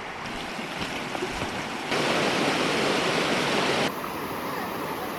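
Shallow river rushing over stones, a steady wash of water noise that turns louder for about two seconds in the middle, then drops back suddenly.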